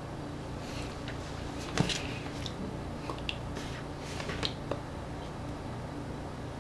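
Steady low room hum with a handful of short, light clicks and taps scattered through it, the sharpest about two seconds in.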